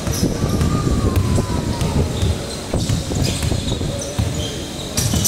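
Basketball dribbled on a hardwood gym floor, repeated bounces echoing in a large hall, with short high squeaks from sneakers on the court now and then.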